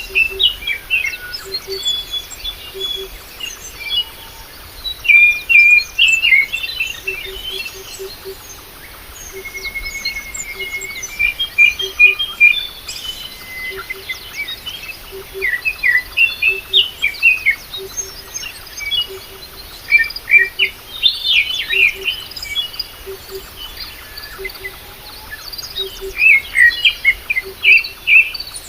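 Several small birds chirping and twittering in quick bursts of short high notes, with a faint low note repeating in pairs underneath.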